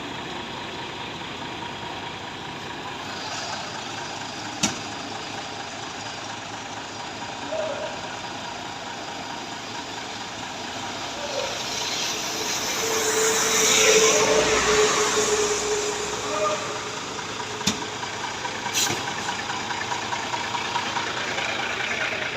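A heavy vehicle's engine running steadily. Midway a hissing swell rises and falls with a steady whine under it, and there are a few sharp clicks.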